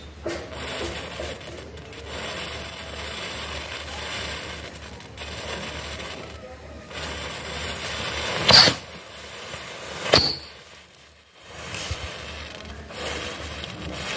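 A chain of matchsticks igniting one after another, hissing and crackling steadily as the flame spreads along the row. Two sharp pops stand out, about eight and a half and ten seconds in.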